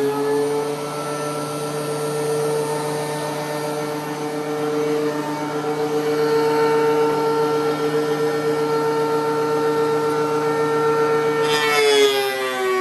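DeWalt DW735 13-inch thickness planer running with a steady high motor whine. The pitch lifts slightly at the start as the load eases, then drops about a second before the end as the next board feeds in and the motor takes the cut.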